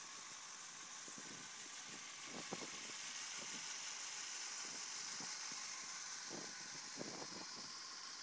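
Yamaha FZ6 Fazer's inline-four engine idling steadily, heard mostly as a faint, even hiss-like drone, with a couple of light knocks.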